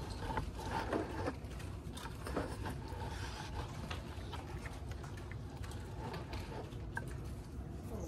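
Small scattered clicks and rustles of thin black ash splints being handled on a woven basket, over a low steady room hum.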